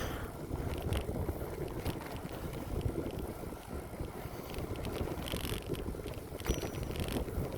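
Wind rushing and buffeting over the microphone of a moving bicycle, with tyre noise rolling on the path underneath and a few brief rattles.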